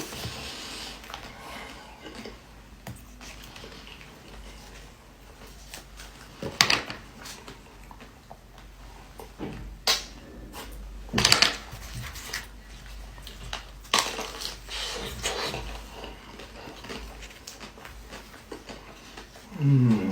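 Close-up eating sounds: a few loud, sharp crunches as a pastry is bitten and broken, with softer chewing and handling noises between them.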